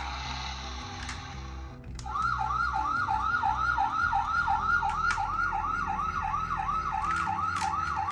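Toy emergency vehicle's electronic siren sounding a fast whoop of repeated rising sweeps, about three a second, starting about two seconds in and cutting off abruptly near the end.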